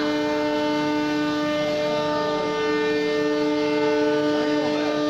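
CNC router spindle motor running at a steady speed, giving a constant high whine with several steady tones.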